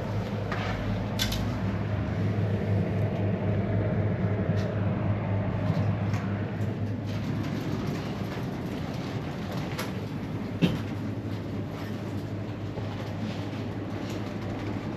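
A steady low mechanical hum with a rumbling noise over it, scattered light clicks, and one sharp knock about ten and a half seconds in.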